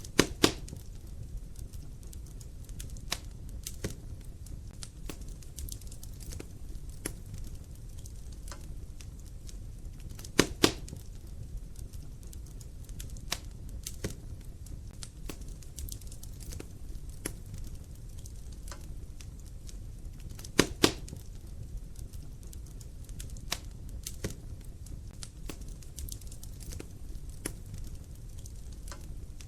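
Wood fire in a fireplace crackling, with frequent small sharp snaps over a steady low rumble of burning logs. Louder double pops come about every ten seconds, at the start, about ten seconds in and about twenty seconds in.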